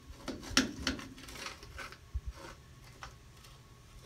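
Sharp clicks, knocks and light rattling from a work light being handled and moved into position, mostly in the first two seconds, then a few faint ticks.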